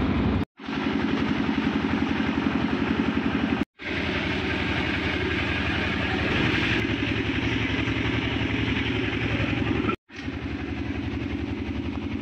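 Scania K410 coach's six-cylinder diesel engine idling with a fast, even low pulse. The sound drops out briefly three times where clips are spliced together.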